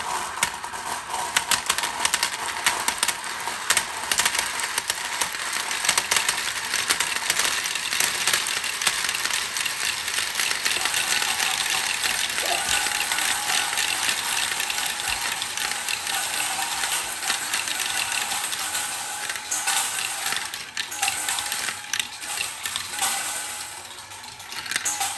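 Dozens of glass marbles rolling around a red plastic vortex funnel of a Galt Super Marble Run, clicking against each other and the plastic in a dense, steady clatter. The clatter thins to scattered clicks near the end as the marbles drain through the centre hole.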